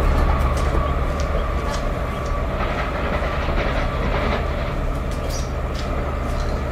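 Light EMD diesel locomotives running without a train, with a steady low engine hum. Wheels click now and then over the rail joints.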